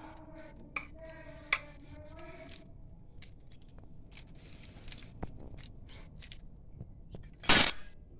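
Light clicks and scrapes of a pastry brush and fork working over logs of dough on a parchment-lined baking tray, with two sharp clicks early and one short, loud rustle near the end.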